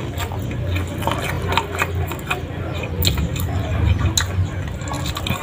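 A person eating with his fingers, chewing and smacking on a mouthful of fried-noodle omelette, with many small irregular clicks and ticks over a steady low hum.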